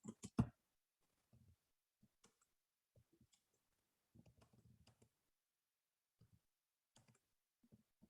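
Near silence, with a quick run of sharp clicks in the first half second and a few brief, faint sounds scattered after.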